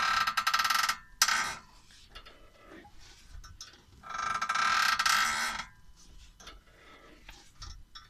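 Car front suspension creaking as the steering is turned to the right with the wheel off. A drawn-out squeak lasts about a second at the start, a short one follows, and a longer one comes about four seconds in. The creak comes only when turning one way, and its source in the right-side suspension is not yet found.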